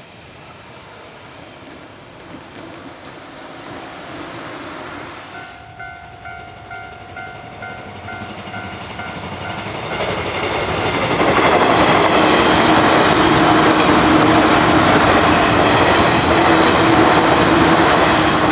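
A car passes over the level crossing, then the Japanese level-crossing alarm starts about six seconds in, a rapid, evenly repeating electronic ding. From about ten seconds in a train approaches and runs loudly past at close range, its wheels clacking over the rail joints while the alarm keeps sounding.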